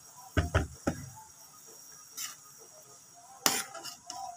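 A metal spoon clinking and knocking against an aluminium wok: three quick knocks about half a second in, then another knock near the end.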